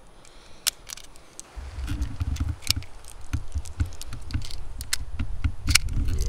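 9mm cartridges pressed one at a time into an HK SP5K magazine by thumb: a string of sharp metallic clicks at an uneven pace. A low rumble on the microphone joins in about a second and a half in.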